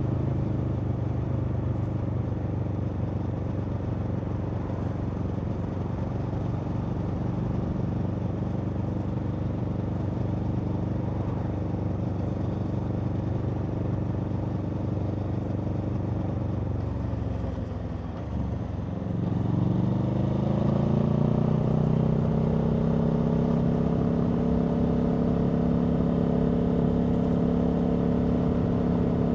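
Aprilia Tuono V4 motorcycle's V4 engine running at steady cruise, heard from on board. About two-thirds of the way through the note drops briefly, then climbs over a couple of seconds as the bike accelerates and holds steady at a higher, louder pitch.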